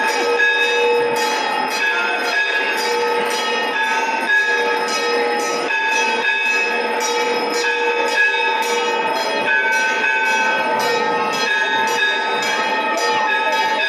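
Hindu temple bells ringing continuously for the aarti, struck about twice a second, their ringing tones overlapping and sustaining between strokes.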